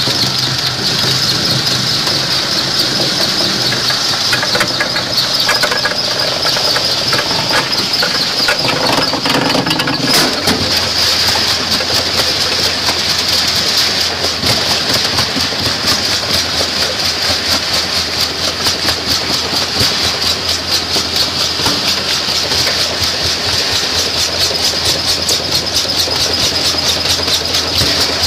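Rock crusher machinery running with a steady, fast rattle and hiss. A low hum joins about ten seconds in.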